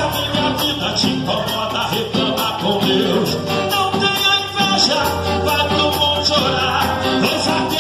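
Live gospel worship band playing with a steady beat: drum kit, keyboard and guitar with a bass line.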